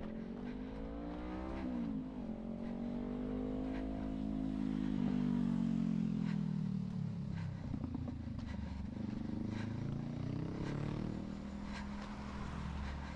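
Motor vehicles driving past on the road alongside, their engine hum rising and falling in pitch as they come and go, loudest about five seconds in. Light footfall taps of the runner on the sidewalk sound faintly underneath.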